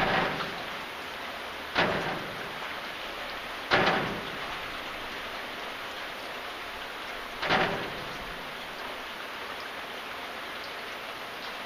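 Steady rain falling, with four sudden louder hits close by at irregular intervals: one at the start, then about two, four and seven and a half seconds in. Each hit fades within about a second.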